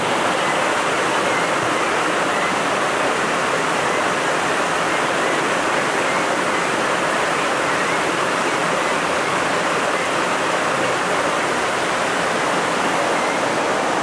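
Small waterfall running steadily over rocks into a stream pool, an even rushing water noise.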